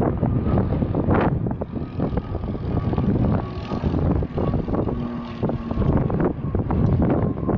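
An aircraft engine running, heard under heavy wind buffeting the microphone in gusts.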